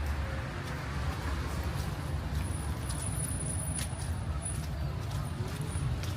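Steady city street traffic noise, a low rumble with a faint wash of higher noise and a few light clicks.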